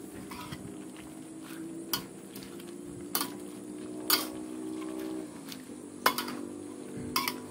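A ladle knocking and clinking against a wok five times, a second or so apart, as chicken and vegetable soup is stirred, over a steady low hum.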